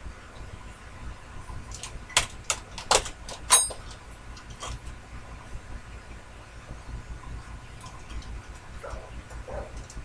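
Several sharp metallic clicks and knocks of metal parts or tools being handled at a small bench lathe, the last one ringing briefly, over a steady low hum.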